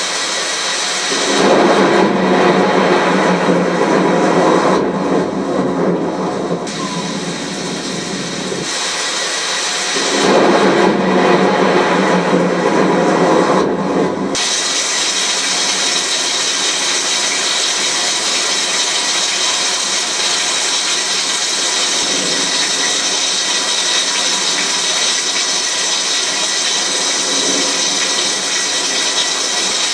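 Heavy tropical downpour: a steady hiss of rain pouring onto the ground and yard. In the first half there are two louder stretches of deeper rushing noise, one of several seconds and one of about four seconds.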